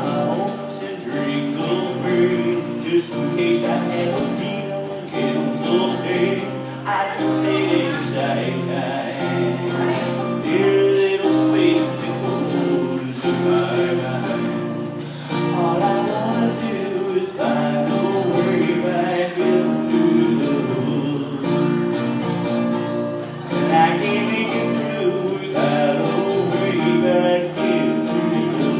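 A singer performing a song to guitar accompaniment.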